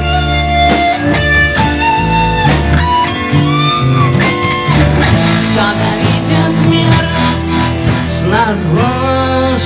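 Instrumental break of a rock song: a guitar plays a lead melody with bending notes over bass and drums.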